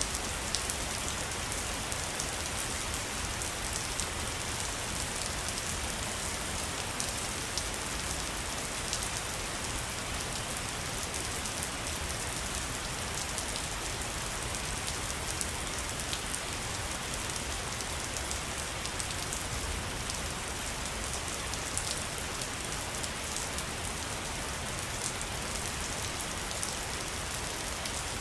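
Waterfall: a steady rush of falling water, with many faint splashing ticks.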